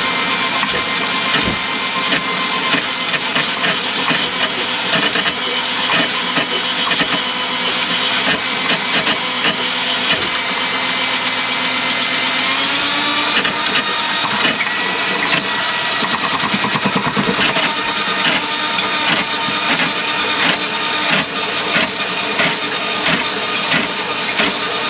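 Electric drain-cleaning machine running steadily, its spinning cable knocking rapidly as it works through a grease clog in a kitchen sink drain line. Its pitch rises about halfway through.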